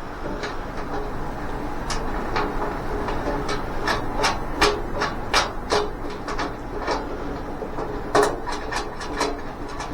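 Irregular metallic clicks and clinks of steel welding-cart parts, bolts and tools being handled during assembly, clustered in quick runs in the middle and near the end, over a steady low hum.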